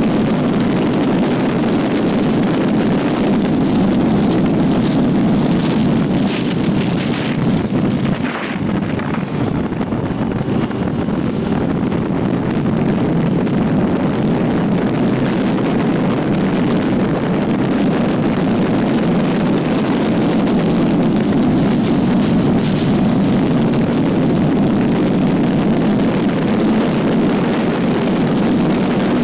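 Triumph Trident 660's inline three-cylinder engine running steadily at highway speed, heavily mixed with wind buffeting on an unshielded microphone. There is a brief dip in loudness about eight seconds in.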